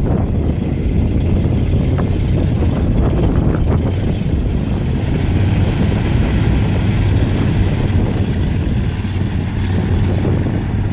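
1976 Ford grain truck's engine running steadily.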